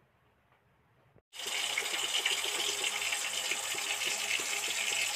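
Katla fish pieces frying in hot oil in a wok, sizzling steadily. The sizzle starts suddenly about a second in.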